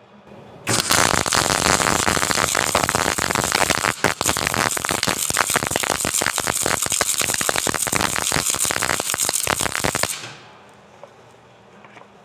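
MIG welding arc laying a bead: a dense, steady crackle and sizzle of the wire arc that starts about a second in, falters briefly around the middle, and stops near the end.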